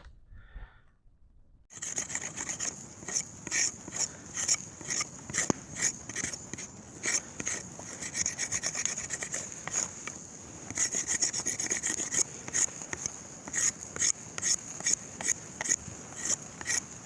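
Hand saw cutting through wood in quick, even back-and-forth strokes, about two to three a second. It starts abruptly a couple of seconds in.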